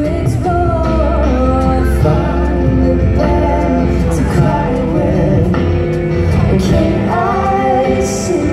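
A live band plays a pop song, with voices singing over acoustic guitar through a PA sound system.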